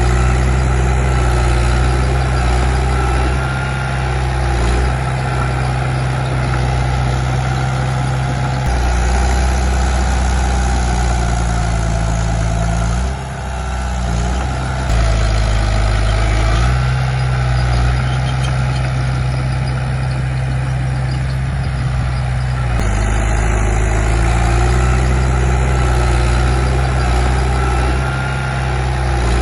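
Bulldozer diesel engine running steadily under working load, its note shifting as the load changes, with a brief drop about thirteen seconds in.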